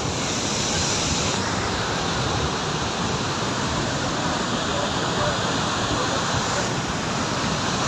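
Floodwater rushing in a steady, unbroken torrent.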